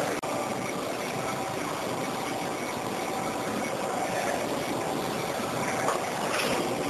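Johnford ST-80CX CNC slant-bed lathe running, its spindle turning a large chuck: a steady mechanical noise that breaks off for an instant just after the start.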